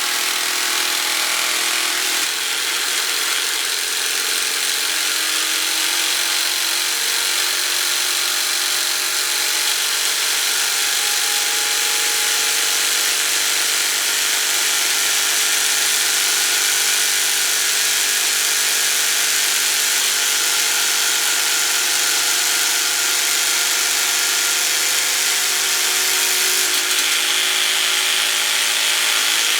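Gutted sewing machine belt-driven at high speed by a treadmill motor, running continuously with a loud, high-pitched mechanical whine made of several steady tones. The sound shifts slightly about two seconds in and again near the end.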